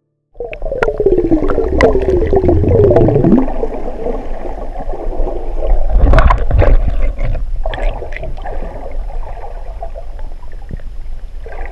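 Muffled underwater sound picked up by a submerged action camera: gurgling water and bubbles with a low rumble and scattered sharp clicks, and a wavering tone that falls in pitch over the first few seconds.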